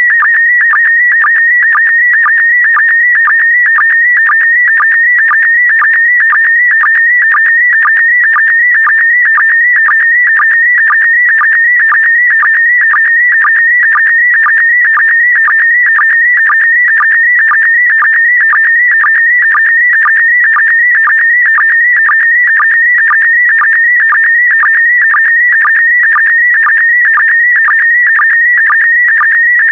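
PD120 slow-scan television (SSTV) image signal: a warbling tone near 2 kHz, broken by short, lower sync blips about twice a second as the picture is sent line by line.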